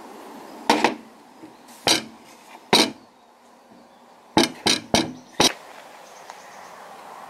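Sharp knocks and clacks of a wooden handle block and a small brass plate being handled and set down on a workbench: a quick pair, two single knocks, then four quick knocks in a row.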